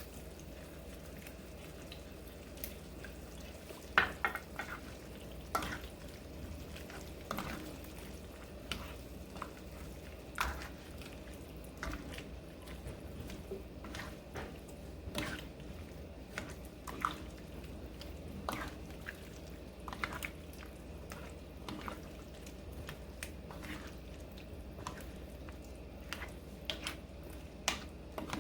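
Kitchen utensil tapping and clinking irregularly, one or two light clicks a second and a sharper knock about four seconds in, as food is stirred, over a steady low hum.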